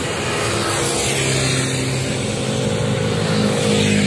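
Motor scooters passing on the road, their small engines humming as they go by over the general hiss of traffic, growing a little louder near the end as more approach.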